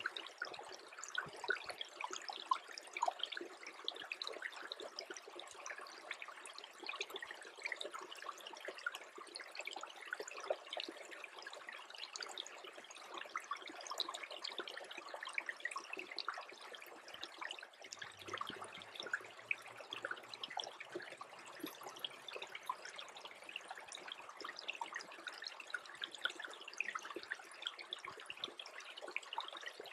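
Small creek trickling under forming ice, a dense, steady patter of tiny drips and bubbling pops.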